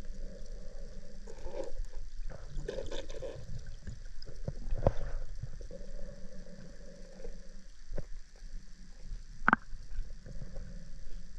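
Underwater drone's thrusters humming in a river, the hum coming and going in stretches of a second or two as the drone manoeuvres, over a murmur of water. Scattered sharp clicks and knocks, the loudest near the end.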